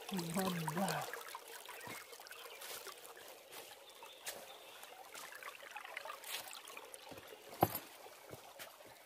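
Shallow stream trickling faintly over stones, with small scattered water ticks. A short voice-like sound in the first second and a single sharp tick about seven and a half seconds in.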